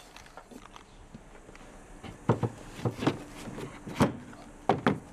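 Knocks and bumps of things being handled in an open car trunk: a handful of short, sharp knocks, clustered in the second half.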